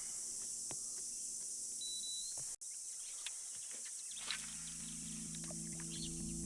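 Steady high-pitched drone of insects in the riverside bush, with scattered small ticks and chirps. About four seconds in, a low steady hum joins it.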